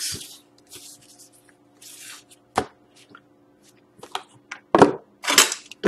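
Trading cards and foil pack wrappers being handled on a tabletop: scattered short rustles and a sharp click about two and a half seconds in, with louder handling near the end.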